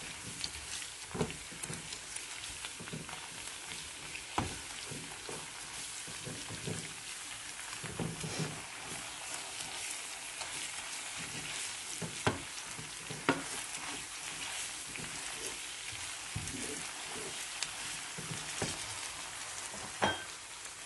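Chopped onions and tomato paste sizzling in olive oil in a frying pan, with a steady hiss. A wooden spoon stirring them knocks and scrapes against the pan every few seconds.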